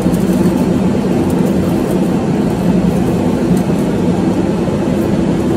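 A steady, loud mechanical drone with a low hum that does not change, like a running shop machine such as a fan or compressor.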